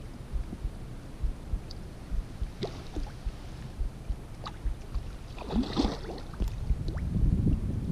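Wind buffeting the microphone as a low rumble, growing stronger near the end, with scattered light clicks and knocks and a short louder burst of rustling about five and a half seconds in.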